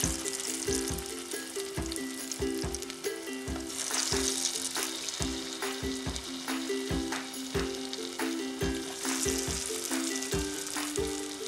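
Vegetable balls deep-frying in hot oil in a pot, a steady sizzle. The hiss grows louder twice, about four seconds in and again about nine seconds in.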